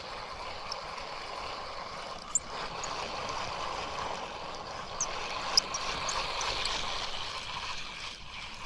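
Steady rush of flowing stream water, with a few short sharp clicks about two and a half and five seconds in.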